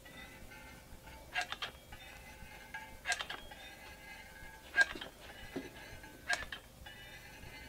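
Trigger of a Cabela's jerky gun clicking as it is squeezed, four squeezes about a second and a half apart, pressing ground venison out in strips.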